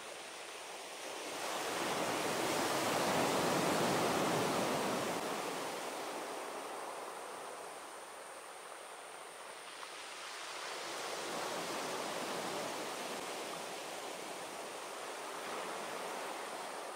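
Sea waves breaking and washing up a beach. A big surge builds from about a second and a half in and dies away by about six seconds. A weaker one rises about ten seconds in, and a smaller swell comes near the end.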